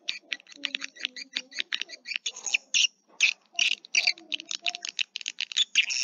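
Swiftlet calls: a dense, rapid chatter of short clicks and twitters, with a few longer, lower notes underneath.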